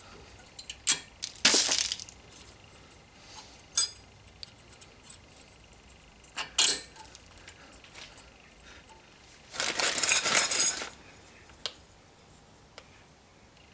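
Thin steel brake-pad retaining clips clinking and scraping against the caliper carrier as they are pressed into place by hand: scattered sharp clicks, short rasps, and a longer scrape about ten seconds in.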